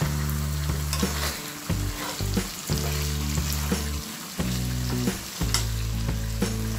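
Spiced beef frying and sizzling in a non-stick pan while a spatula stirs it up from the bottom, with repeated scrapes and taps of the spatula against the pan.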